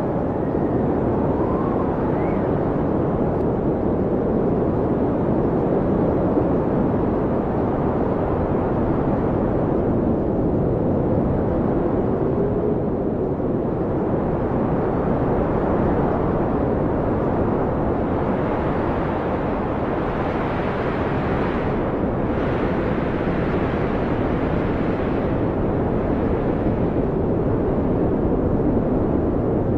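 Blizzard wind blowing steadily with a deep rushing noise, a few faint howling whistles gliding up and down in pitch. Past the middle, stronger gusts swell and make the hiss brighter for several seconds.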